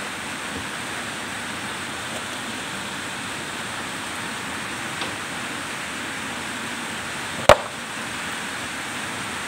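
Steady hiss of rain, with one sharp click about three-quarters of the way through.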